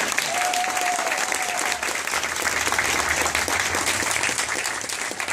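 Crowd of guests applauding steadily, with one long held note rising over the clapping about half a second in.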